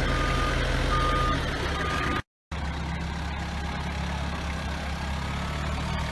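Forklift engine running steadily while its reversing alarm beeps three times, one short steady beep about every 0.8 s. After about two seconds the beeping stops and only the engine goes on.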